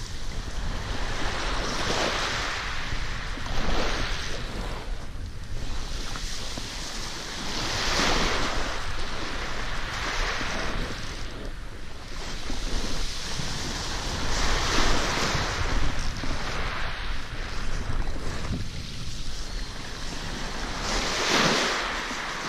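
Small waves washing up a pebble beach, each wash swelling and fading every few seconds, with a low rumble of wind on the microphone underneath.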